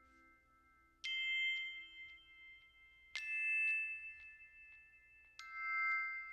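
Background music: three struck, bell-like notes, about two seconds apart, each ringing on, with faint plucked ticks between them.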